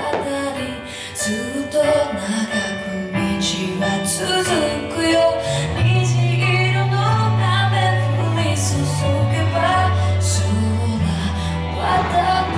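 Music with a female singing voice over a sustained, changing bass line.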